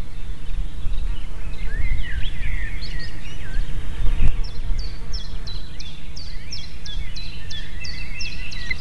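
Wind rumbling on the microphone, with birds calling above it; from about halfway, a run of short, high, falling chirps about three a second, the calls of an osprey at its nest.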